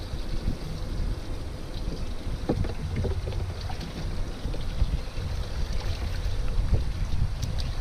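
Wind rumbling on the microphone aboard a small fishing boat, with water against the hull and a few light knocks about two and a half, three and seven seconds in.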